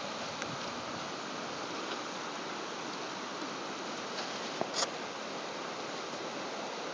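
River water rushing steadily past a gravel bank, an even hiss. A couple of sharp clicks sound about two-thirds of the way through.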